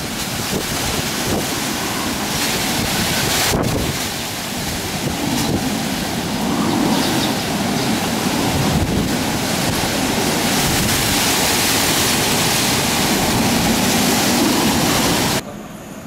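Typhoon wind gusting through trees and buffeting the microphone: a loud rushing noise that swells and eases. It drops away suddenly near the end, leaving a much quieter background.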